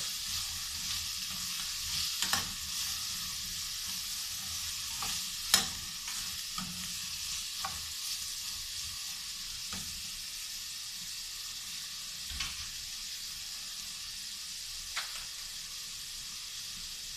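Carrots and string beans sizzling steadily in a frying pan while being stirred with a spatula, with scattered sharp knocks of the spatula against the pan, the loudest about five seconds in.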